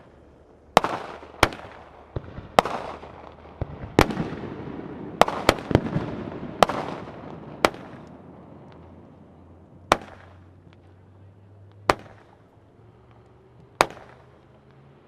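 Multi-shot consumer firework firing comets into the air one after another: about a dozen sharp bangs. They come in quick, uneven succession with crackling between them for the first seven seconds or so, then space out to about one every two seconds.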